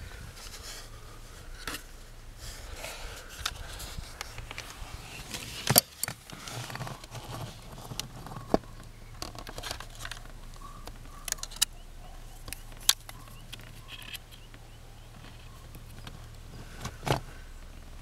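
Handling noise as wires and plastic parts are handled: scattered sharp clicks and soft rustling over a steady low hum.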